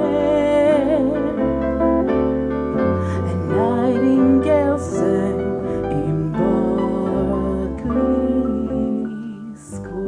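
Live band playing the instrumental close of a slow jazz ballad: electric keyboard chords over an electric bass line, with archtop electric guitar.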